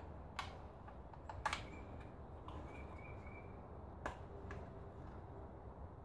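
Several sharp clicks and taps of the plastic Lexus GX470 door lock actuator housing and a screwdriver being handled, with the loudest click about a second and a half in.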